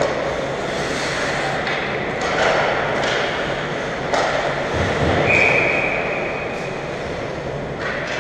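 Ice hockey game in an arena: a steady echoing wash of skating and rink noise with scattered sharp knocks of sticks and puck, a low thud about five seconds in, and a held high tone just after it.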